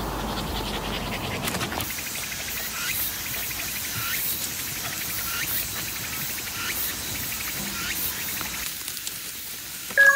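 Evening outdoor ambience of insects chirping: short repeated rising chirps, one or two a second, over a steady hiss. A dog rustles through tall grass.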